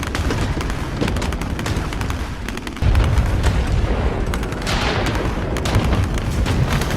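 AI-generated battlefield sound effect: a dense run of gunshot cracks over a constant low rumble of artillery booms. It gets suddenly louder about three seconds in, and a hissing blast swells up around five seconds in.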